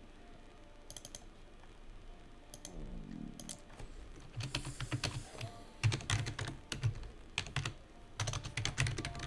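Typing on a computer keyboard in short bursts of keystrokes, sparse at first and quicker and louder in the second half.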